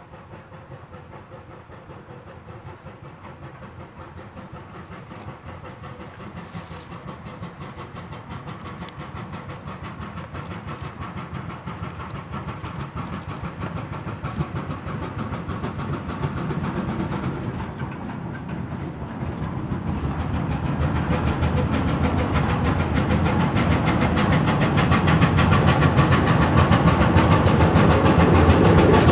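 Replica 1860s 4-4-0 steam locomotive working toward the listener through a stone tunnel, its rapid rhythmic exhaust chuffs growing steadily louder as it approaches.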